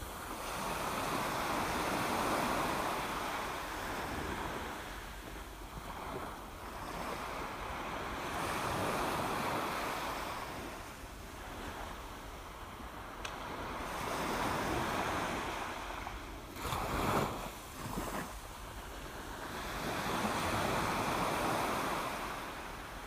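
Sea waves washing over the rocks, rising and falling in surges about every six seconds, with a short, rougher burst of louder water noise about two-thirds of the way through.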